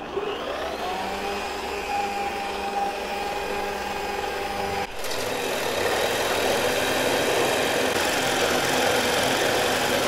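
A bench drill press motor starts up and spins a 90 mm sawtooth bit freely, its whine rising and then holding a steady pitch. About five seconds in, the bit bites into plywood and a louder, rough cutting noise takes over.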